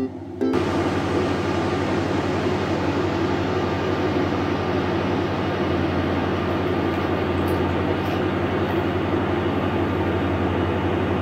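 Hair dryer running: a steady rush of air with a low motor hum, which grows a little stronger about halfway through.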